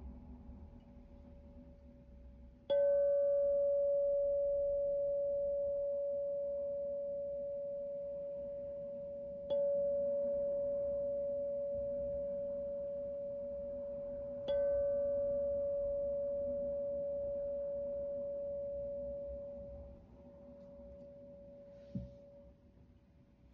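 Metal tuning fork struck three times, each strike a brief bright clang that gives way to a single pure, steady tone at the same pitch. The tone fades slowly and dies out a few seconds before the end, followed by a soft tap.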